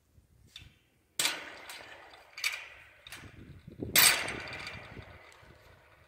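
Metal clanks and rattles from the steel latch and wire kennel door being worked: a sharp clack about a second in, a few lighter knocks, then the loudest clang about four seconds in, ringing on briefly.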